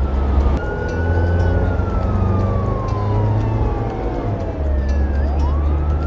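Police siren sound effect for a cartoon police SUV: one long wail that glides slowly down in pitch, then sweeps quickly back up near the end, over a low rumble.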